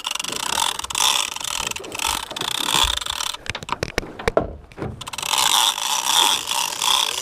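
Conventional big-game fishing reel being cranked, its gears and anti-reverse pawl ratcheting in a steady buzz as line is wound in on a hooked blue shark. The cranking breaks off for a second or so about halfway through, then resumes.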